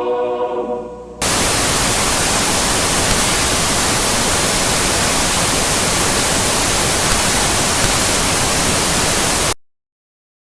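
Music fades out over the first second, then loud, even TV-style static hiss cuts in and holds steady for about eight seconds before cutting off abruptly.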